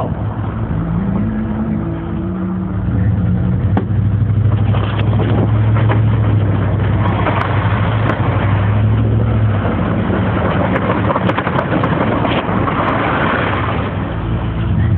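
Dodge Ram pickup's engine running with a steady low drone while the truck plows snow. Rushing wind and road noise rise and fall over it, swelling twice in the middle and near the end.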